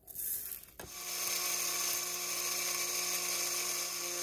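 Roasted whole spice seeds rattle briefly as they are spooned into a plastic blender cup. About a second in, a Magic Bullet blender motor starts and runs with a steady whir, grinding the seeds to powder.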